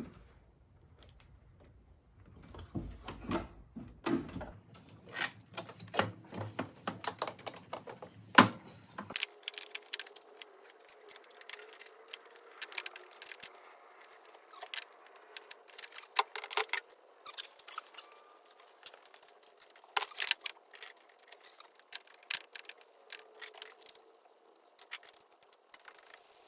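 Irregular light clicks and metallic clinks of small hard objects being handled, with no engine running.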